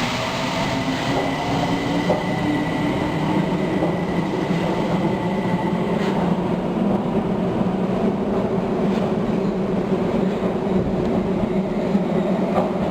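Osaka Metro Tanimachi Line subway train moving along the platform, with a steady electric motor whine over the rumble of wheels on rail; a high tone in the whine fades out about halfway through.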